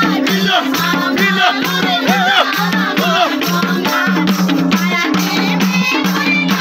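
Live Nepali dohori folk song: women singing together over a madal hand drum's quick steady beat, with a jingling tambourine and hand clapping.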